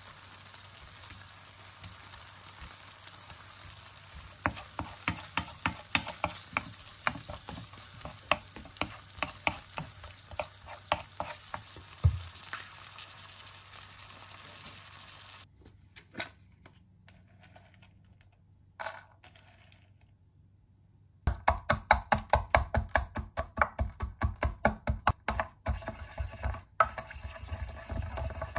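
Food sizzling in a hot pan, with a utensil clicking against it about once or twice a second. After a quieter stretch comes a louder, fast run of sharp knocks, about three a second.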